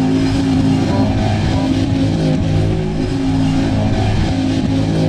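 Off-road truck engine running at a steady, low pitch.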